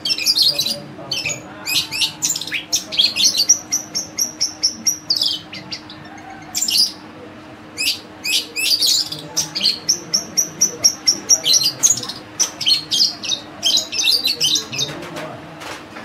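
Long-tailed shrike singing a fast, chattering song of mimicked bird calls: strings of quick high notes and rapid trills, broken by short pauses about five and twelve seconds in.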